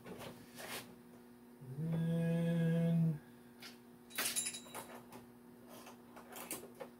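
Scattered clicks and light metallic clatter of tools being handled while a dial indicator is set up, over a steady low hum. About two seconds in, a steady, evenly pitched tone holds for about a second and a half, louder than the rest.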